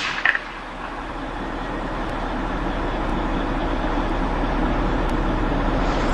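Steady rushing noise with a low hum underneath, swelling gradually over the first couple of seconds and then holding steady.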